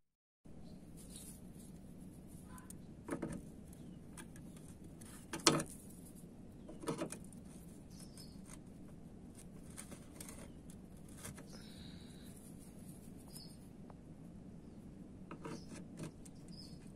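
A few sharp metallic clicks and knocks of spanners being tried on car bumper bolts, about 3, 5.5 and 7 seconds in and a few fainter ones near the end, over steady low background noise with faint bird chirps.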